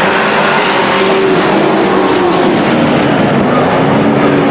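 A pack of dirt-track racing pickup trucks running together around the oval, several engines at once, their pitches sliding slowly lower over the few seconds.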